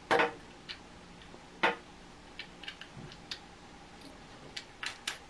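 Faucet mounting hardware being fitted under the sink as the bolt is put on: scattered small clicks and taps, with two louder knocks, one at the very start and one about a second and a half in.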